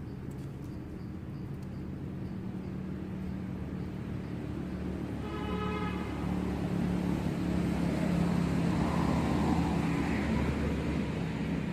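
A motor vehicle's engine drones steadily, growing louder over the second half, with a brief high-pitched sound about five seconds in.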